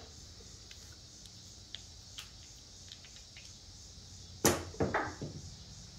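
A pair of dice thrown down a felt craps table: a sharp knock as they strike, then a few quicker, lighter clicks as they tumble and settle, about four and a half seconds in. Faint ticks come before it.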